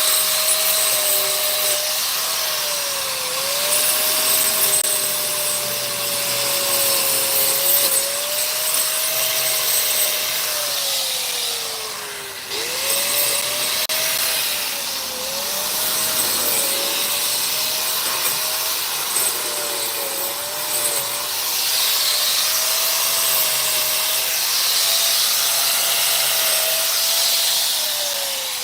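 An electric motor running continuously with a whine whose pitch sags and recovers again and again, as it does under changing load, over a loud rushing hiss. The deepest dip comes about twelve seconds in.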